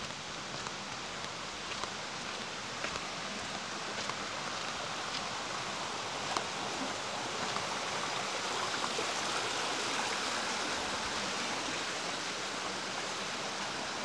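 Rainforest ambience: a steady rushing hiss, rising slightly in the middle of the stretch, with a few faint ticks.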